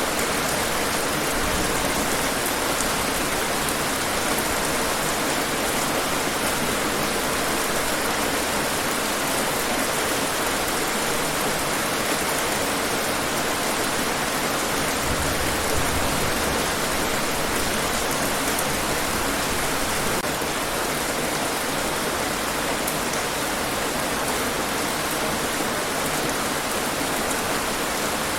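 Steady heavy rain falling and pattering on hard surfaces, an even dense hiss with faint scattered drop ticks.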